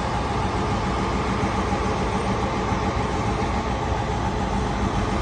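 Steady, loud rumble of city vehicle noise, unbroken throughout.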